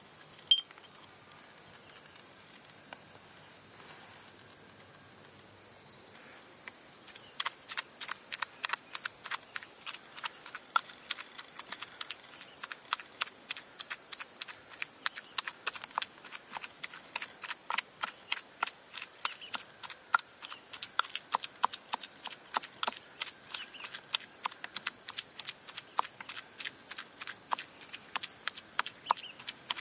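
Wooden pestle pounding fish paste in a mortar: a steady run of quick, regular knocks starting about seven seconds in. Before that, insects chirp faintly and steadily in the background.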